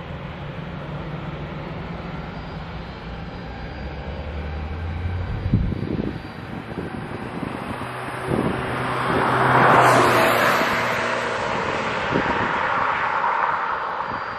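Boeing 737-800's CFM56 jet engines running at taxi power as the airliner rolls slowly along the runway: a steady hum with a thin high whine, swelling to its loudest about two thirds of the way in. There are a few short low thumps, the sharpest about five and a half seconds in.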